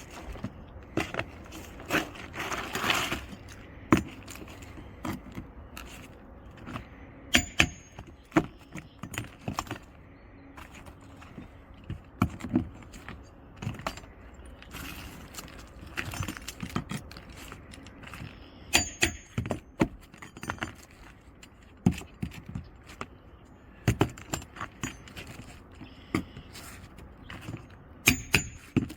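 Roof snake shingle tool scraping and knocking under roof shingles as nails are worked loose: irregular sharp clicks and clinks, a few with a brief metallic ring.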